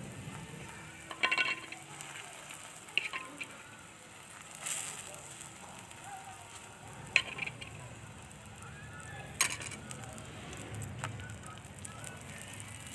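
A wedge of potato paratha frying in ghee in an iron pan, sizzling quietly, with several sharp clinks and scrapes of a utensil against the pan, the loudest about a second and seven seconds in.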